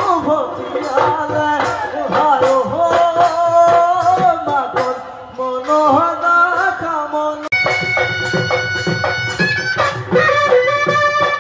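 Live Bihu folk music: a voice sings a melody over a steady hand-drum beat. About seven and a half seconds in, the singing gives way to a held wind-instrument melody while the drumming goes on.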